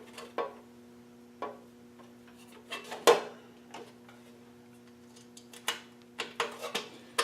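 Scattered small clicks and taps of screws and hand tools being handled, the loudest about three seconds in, over a steady low electrical hum.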